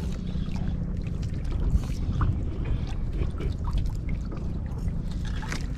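Seawater lapping and splashing against the hull and outrigger floats of a small outrigger boat, with scattered small trickles and drips over a steady low rumble.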